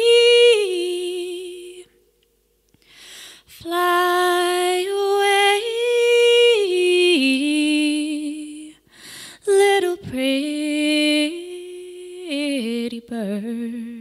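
A woman's solo singing voice holds long, slow notes that step up and down in pitch. It breaks off briefly about two seconds in and again about nine seconds in.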